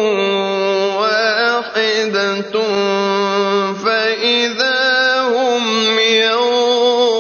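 A man's voice reciting the Quran in the slow, melodic mujawwad style: long held notes with ornamented turns of pitch, broken by a few brief pauses.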